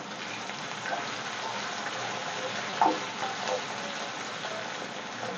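Chopped onions and cumin seeds sizzling steadily in hot oil in a kadhai as they fry. A wooden spatula stirs them, with a few light scrapes against the pan.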